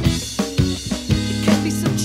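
Live rock trio playing an instrumental stretch without vocals: Ludwig drum kit hits with bass drum and snare, over electric bass and electric guitar.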